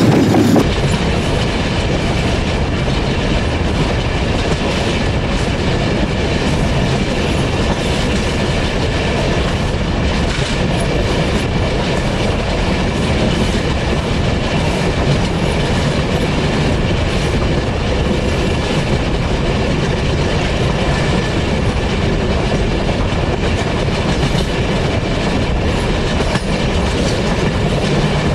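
Steel wheels of a railway wagon rolling on the rail, heard close up beside the wheel: a steady, loud metallic rolling noise. A heavier, lower-pitched rush in the first half second gives way to it.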